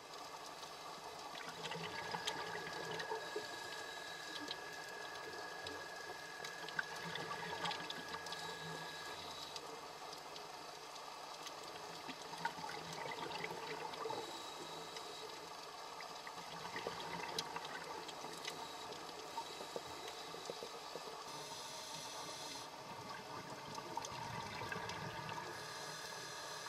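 Underwater ambience: a steady wash of water noise with many scattered small clicks and crackles, and a faint steady high tone for several seconds near the start.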